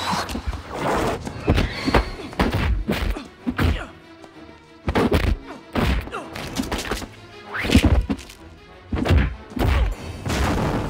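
Film fight sound effects: a rapid series of punch and kick impacts, thuds and whacks in quick succession, over a music score.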